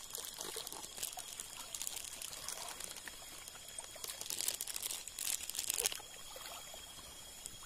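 Water pouring and trickling with crackly splashes, swelling into two louder rushes about four and five seconds in.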